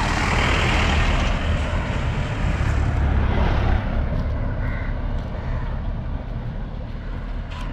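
A motor vehicle passing on the road: its noise swells in the first second and then slowly fades, over a low rumble.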